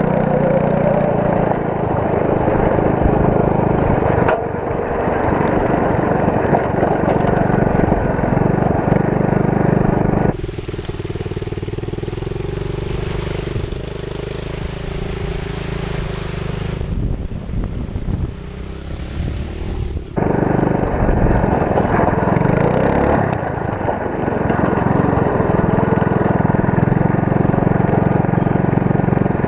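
Go-kart's small engine running under throttle. About ten seconds in it cuts to a quieter stretch of riding through standing water, heard from a helmet camera, and about twenty seconds in it cuts back to the go-kart engine.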